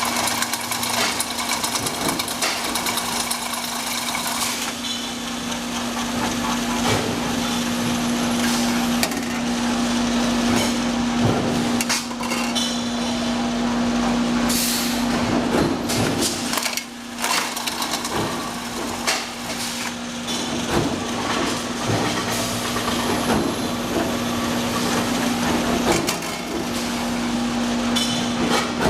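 Steel tube mill line running: a steady machine hum under frequent irregular metallic knocks and clanks.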